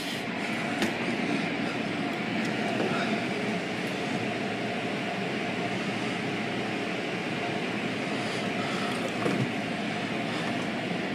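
Automatic car wash heard from inside the car's cabin: water spraying and cloth brushes sweeping over the body and windows in a steady, even rush of noise.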